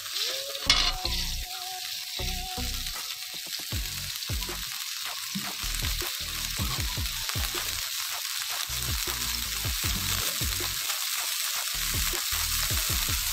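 Fried garlic, shallot and chili spices in a wok sizzling and bubbling steadily with just-added water, heating toward the boil. One sharp tap about a second in.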